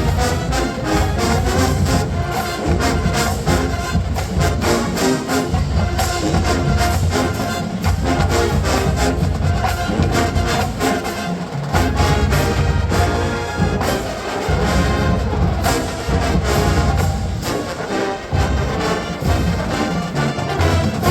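Marching band playing: brass horns and trombones carry the tune over a steady drum beat.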